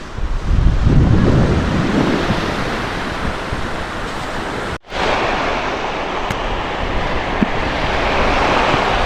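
Storm surf breaking and washing on the beach, with strong wind buffeting the microphone, heaviest in the first two seconds. The sound drops out for an instant about halfway, then the wash of the surf swells again.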